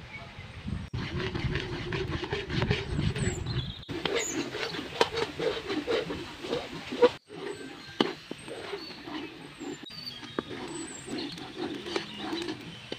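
A metal spatula scraping and stirring a thick ground glutinous rice and tamarind mixture in a metal wok, in quick uneven strokes.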